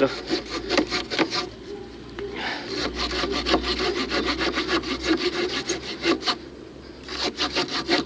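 Pocket-knife saw blade of a Victorinox RangerGrip 130 mm cutting through a wooden pole about 8 cm thick: a run of rasping back-and-forth strokes with two short pauses, near the end of the cut with the pole almost sawn through.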